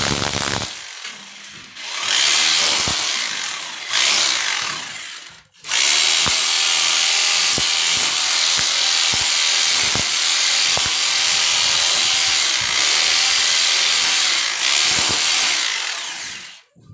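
Electric rotary hammer with a chisel bit chiselling a channel into a brick wall for electrical conduit. It runs in a few short bursts over the first five seconds, then steadily for about eleven seconds, and cuts off just before the end.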